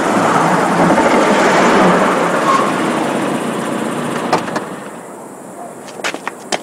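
Lada Zhiguli police car driving up and coming to a stop, its engine and tyre noise dying away about four to five seconds in. Then a few sharp clicks and knocks as the car's door is opened.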